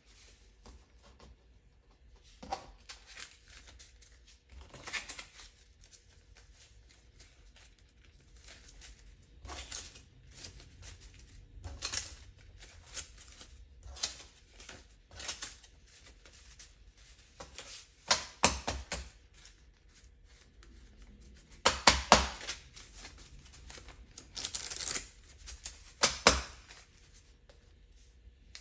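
US $100 paper banknotes being handled and counted by hand on a wooden table: irregular flicks, slides and rustles of the bills, with the loudest clusters in the last third.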